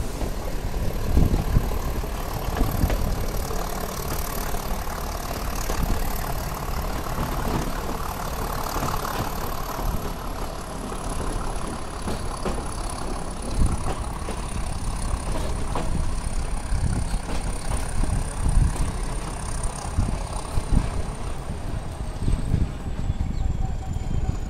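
Nilgiri Mountain Railway coach running on metre-gauge track and easing into a station: a steady rumble of wheels and running gear with uneven low thumps. A faint high whine slowly falls in pitch throughout.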